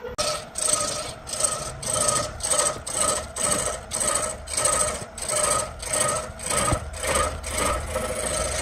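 A hand tool being worked back and forth across wood in a steady even rhythm, a little over two rasping strokes a second.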